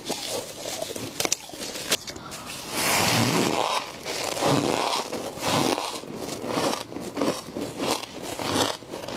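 Frost being scraped and crunched between the teeth. A few sharp clicks in the first two seconds, then a loud rasping crunch about three seconds in, followed by a run of shorter crunches.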